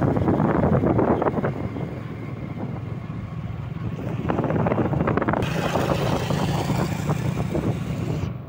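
Wind buffeting the microphone on a moving motorcycle, heaviest in the first couple of seconds, with the motorcycle's engine running steadily underneath. A higher hiss joins about five seconds in.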